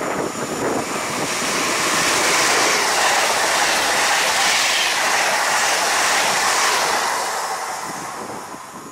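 PKP Intercity ED160 (PESA Dart) electric multiple unit passing at speed: a rush of wheel and air noise that swells over the first couple of seconds, holds while the carriages go by, and fades away near the end.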